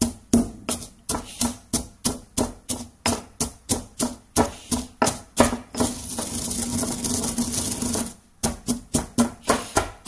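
Stone pestle pounding roasted coffee beans in a stone mortar, crushing the already broken beans into grounds with sharp knocks about three a second. Around six seconds in the knocking stops for about two seconds of steady grinding rub, pestle against stone and grounds, then the pounding resumes.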